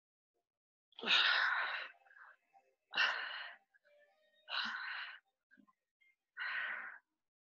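A person breathing out hard four times, one forceful exhale about every one and a half to two seconds, in time with the reps of a strenuous exercise.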